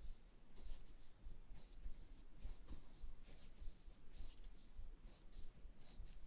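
Faint, rhythmic rubbing of fingertips stroking across the forehead and hairline in a self-massage, skin and hair brushing about twice a second.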